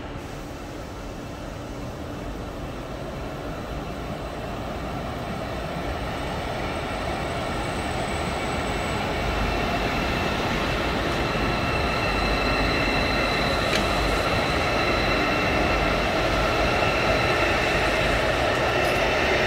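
KTX-EUM electric high-speed train pulling into a station platform: a rumble and rush of wheels on rail that grows steadily louder as it comes in. About halfway through, a steady whine of several high tones joins in.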